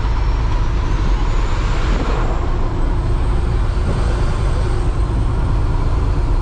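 Cab interior of a loaded Kenworth T800 dump truck, its Cummins X15 inline-six diesel running steadily under load with tyre and gravel-road noise. About two seconds in the noise swells briefly as an oncoming dump truck passes.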